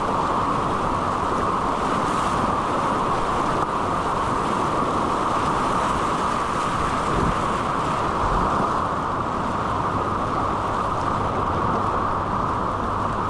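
Steady, even rush of river whitewater around a kayak, heard close up.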